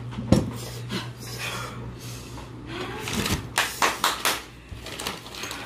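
Dishes and utensils clattering in a handful of quick knocks, over a steady low hum.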